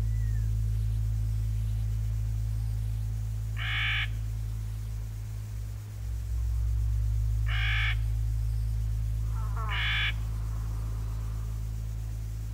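A low, steady drone of several held tones, with three short, harsh animal calls over it about four, eight and ten seconds in.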